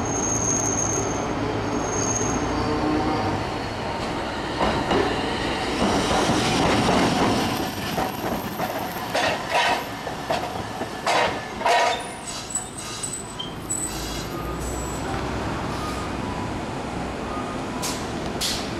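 Iyotetsu Type 2000 tram rolling slowly into the stop, its wheels knocking over rail joints and points in an uneven run of clicks, with short high wheel squeals. It then rumbles on quietly as it comes to a halt.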